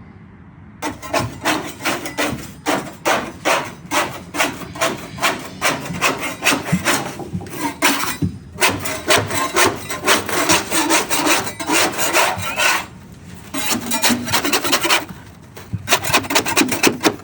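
Rapid hand scraping or rubbing strokes, about three a second, in runs broken by short pauses about halfway and near the end.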